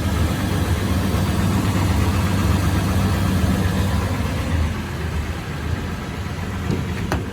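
2017 Toyota 4Runner TRD Pro's 4.0-litre V6 running steadily, carrying the knocking noise the owner cannot identify. A single sharp click near the end.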